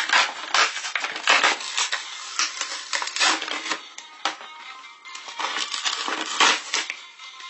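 Plastic toy packaging crinkling and crackling in irregular bursts as it is handled and pulled open, with light background music.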